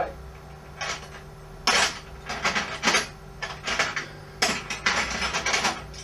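Metal spanners clinking and clattering against each other as they are rummaged through, in a series of sharp rattles.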